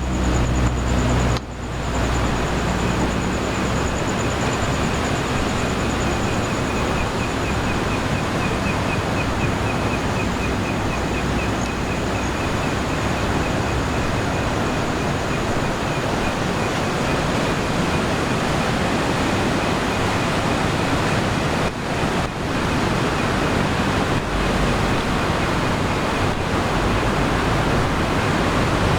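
Steady wash of sea waves on the shore at night, with insects calling over it: a high continuous buzz and a finely pulsing trill through most of it.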